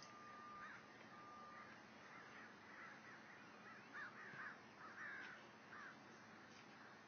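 Faint outdoor quiet with a run of short, distant bird calls, thickest a few seconds in, and a thin steady tone twice near the start.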